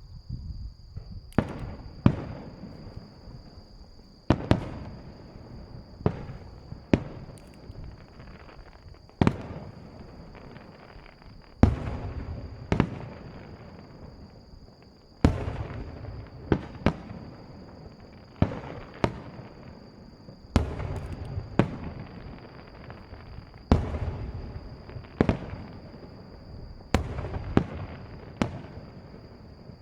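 Aerial firework shells bursting in a rapid-fire starmine finale, heard from about 750 m away: sharp booms every second or so, some in quick pairs, each trailing off in a long rolling echo.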